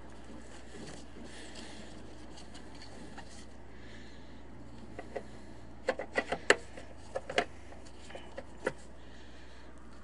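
Hood release handle of a BMW E39 being pushed and twisted into its mounting hole. A quick run of about a dozen sharp clicks and knocks starts about five seconds in.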